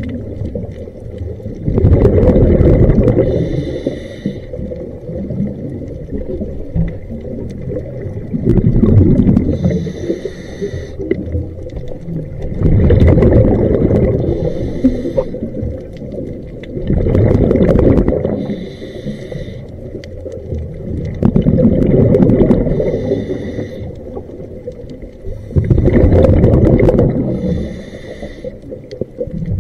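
Scuba diver breathing through a regulator underwater: a loud rush of exhaled bubbles and the hiss of the demand valve, repeating about every four to five seconds, six breaths in all.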